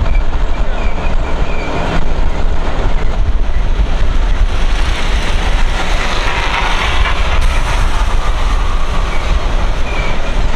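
Vehicle driving slowly: a loud, steady low rumble of engine and road noise.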